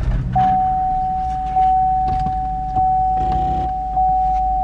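Car's warning chime sounding through the front driver's-side door speaker, heard inside the cabin: one steady tone struck about every second and a quarter, four times, each note fading a little until the next. It is set off by the ABS fault that has also lit the ABS, traction and brake warning lights. Under it is a low steady hum.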